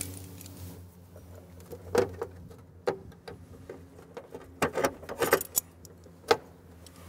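Scattered sharp metallic clicks and clinks of Cleco pliers and a Cleco sheet-metal fastener being worked into a freshly drilled hole in an aluminium door bracket, with a cluster of clicks near the end. A low steady hum runs underneath.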